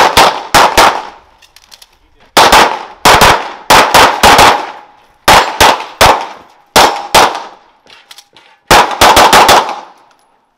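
Semi-automatic pistol fired in rapid strings, mostly quick pairs of shots (double taps), each crack followed by a short echoing tail, with brief pauses between strings as the shooter moves between positions.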